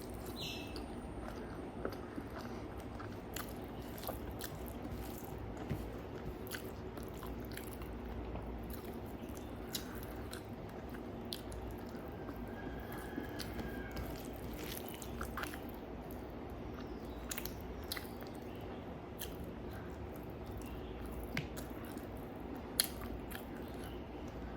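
A person eating close to the microphone: chewing with irregular soft mouth clicks and smacks, over a steady low hum.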